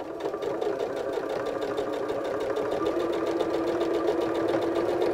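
Janome electric sewing machine running steadily, its motor hum under a quick, even ticking of the needle as it stitches a binding down through the quilt layers.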